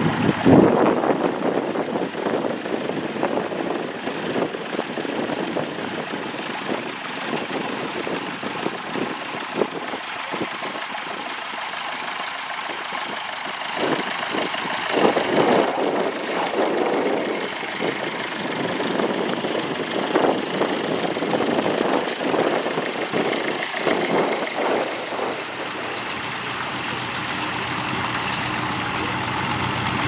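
Grey Ferguson TE20 tractor engine running under load while pulling a plough through stubble, its level rising and falling, with louder stretches in the middle.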